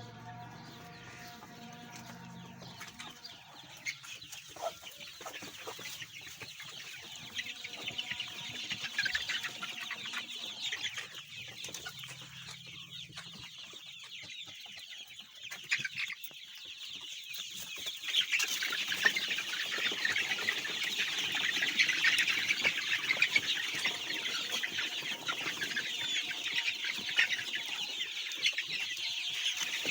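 Flock of golden Misri chickens clucking and chirping, many birds at once; the calling grows louder and busier after about two-thirds of the way in. A faint low steady hum sits under it near the start and again briefly midway.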